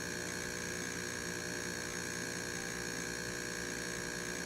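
Jura Z6 superautomatic coffee machine running steadily with an even, high-pitched motor hum as its pump pushes coffee through the grounds into the cup.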